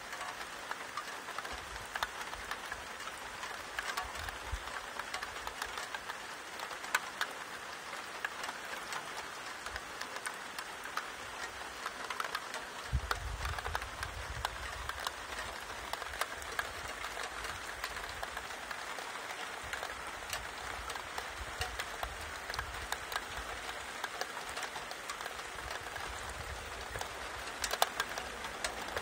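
Steady rain falling: a continuous hiss scattered with many separate drops ticking. A low rumble comes and goes a few times, most clearly about thirteen seconds in.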